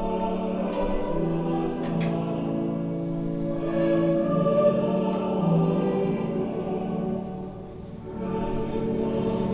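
A group of voices singing a slow sacred chant in long held notes, with a short break about eight seconds in before the singing picks up again.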